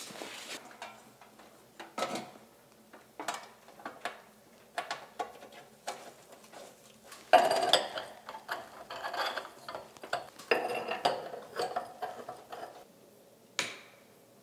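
Metal fittings and glass shades of a three-light vanity fixture clinking and rattling as it is mounted to the wall, scattered knocks and a denser run of clatter in the middle, followed by one sharp click near the end.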